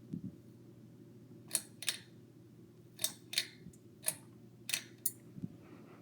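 Ceiling fan running with a faint steady hum, while about seven sharp clicks sound irregularly through the middle of the stretch.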